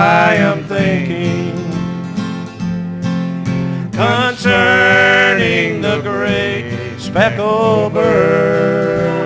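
Instrumental opening of a country gospel song: acoustic guitar chords under a sliding lead melody line, before the singing begins.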